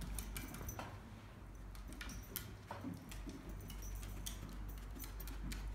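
A small dog's claws clicking irregularly on timber floorboards as it moves about searching for hidden treats, over a low steady rumble.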